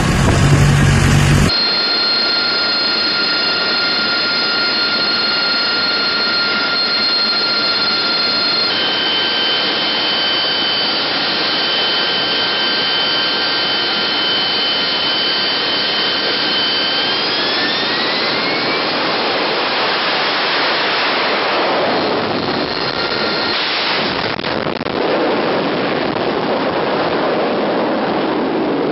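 AV-8B Harrier's Pegasus turbofan running on deck with a steady whine of several high pitches. About 17 seconds in the whine glides upward as the engine spools up. It then gives way to loud, broad jet noise as the Harrier takes off.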